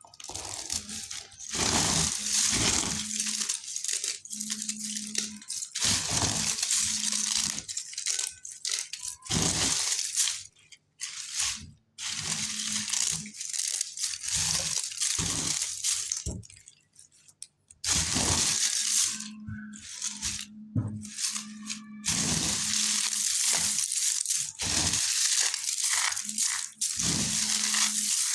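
Dry multani mitti (Fuller's earth clay) being crushed and crumbled, a dense crunching and crackling that runs in long stretches with a few brief pauses.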